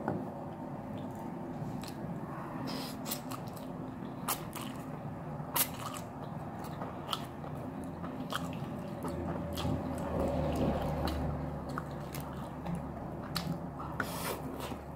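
Close-up eating sounds: chewing and biting, with sharp wet mouth clicks and smacks coming at irregular moments.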